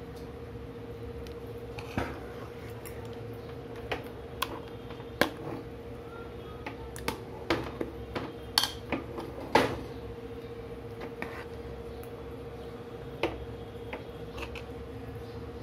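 A spoon beating thick batter in a steel bowl: irregular clinks and knocks of the spoon against the bowl, bunched together about seven to ten seconds in, over a faint steady hum.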